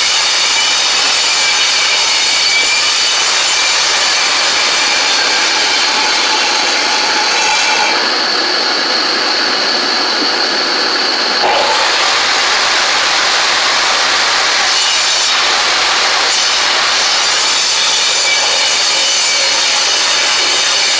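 Ridgid table saw running and ripping rough-cut eastern red cedar boards, a steady loud motor whine over the noise of the blade cutting wood. The sound drops slightly for a few seconds about eight seconds in, then picks back up.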